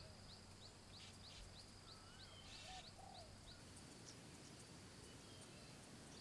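Faint wildlife ambience: a run of short high chirps, about two a second, thinning out after the first few seconds, with a few soft lower whistled calls about two to three seconds in, over a low hiss.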